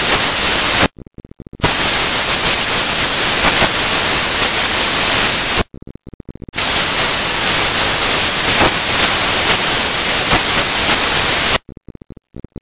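Loud, steady static hiss that cuts out abruptly twice for under a second, then stops near the end.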